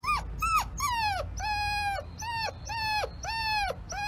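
A puppy whining in a string of high-pitched whines, about eight in four seconds. Some are short and some are held longer, and each drops in pitch at its end.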